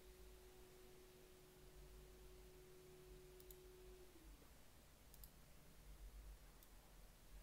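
Near silence: faint room tone with a thin steady hum that slides down in pitch about four seconds in, and three faint clicks.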